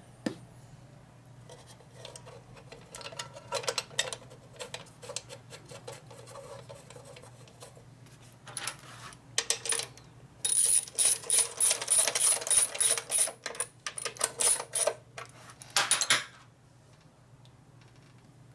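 Hand-tool work on metal: scattered metallic clicks and scrapes, then a dense run of rapid, loud metal-on-metal strokes over the second half, which stops a couple of seconds before the end.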